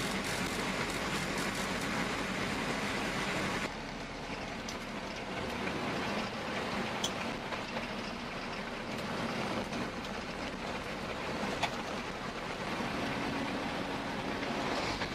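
A machine running steadily, its sound changing abruptly about four seconds in, with a couple of faint sharp clicks later on.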